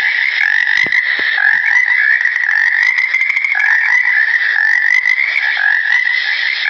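Frogs calling in a dense, continuous chorus.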